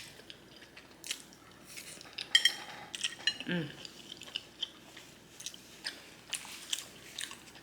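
Close-miked chewing of garlic noodles and shrimp: irregular wet mouth clicks and smacks. A short hummed "mm" comes about three and a half seconds in.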